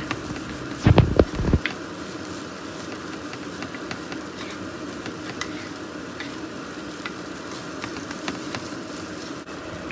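Fried rice sizzling in a nonstick skillet while a slotted wooden spatula stirs, scrapes and presses it to break up the rice, with a few heavy knocks against the pan about a second in.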